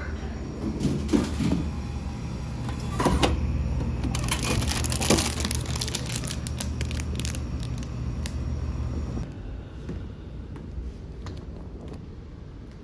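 Vending machine dispensing a wrapped ice cream bar: a few clunks, then a rattling clatter of the flap and the plastic-wrapped item as it is pulled out. A steady low hum sits underneath and drops away about nine seconds in.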